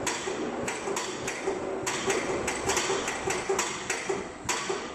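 Paoloni band-sawn-effect machine (cross cutter) running with a wooden floorboard passing through: its pistons knock on the board at irregular intervals, two or three times a second, over a steady machine hum.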